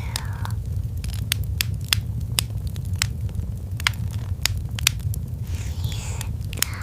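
Fire crackling: irregular sharp pops, a few a second, over a low steady rumble.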